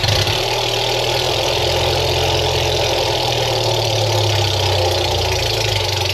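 The petrol engine of a 1972 Allis-Chalmers M65 road grader catching after brief cranking and running steadily on its first cold start. It fires right up now that the choke can close fully, the fix for its hard cold starting.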